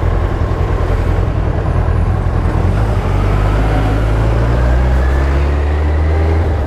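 2001 Suzuki Hayabusa's inline-four engine running on the move through a cut-down exhaust with a Coyote RS Trioval muffler and no baffle, with wind noise. From about three seconds in the revs climb gently and the pitch rises.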